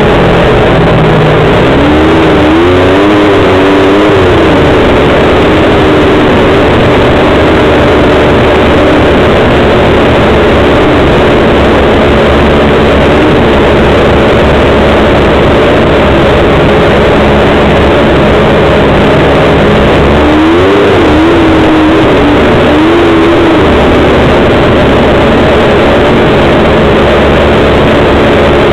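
A small vehicle's engine running loud and steady, heard from on board while riding a snowy trail. Its revs climb and waver twice, about two seconds in and again about twenty seconds in.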